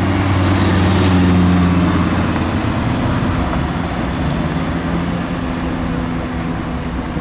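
A car engine running at low, steady revs as the car passes, loudest about a second in and then slowly fading, over street traffic noise.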